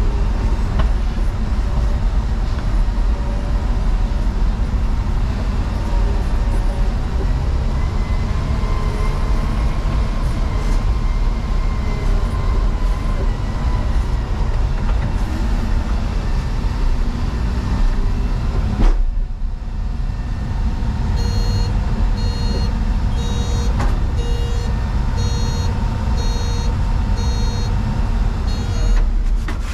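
Heavy diesel engine running steadily. About two-thirds of the way in the sound breaks off suddenly, then a reversing alarm beeps about once a second over the engine.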